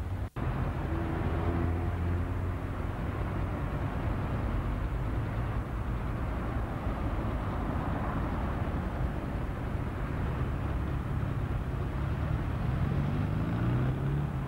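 Road traffic through a camcorder's built-in microphone: a steady rumble and hiss of passing cars. Near the end one vehicle's engine rises in pitch as it speeds up. Just after the start the sound briefly drops out.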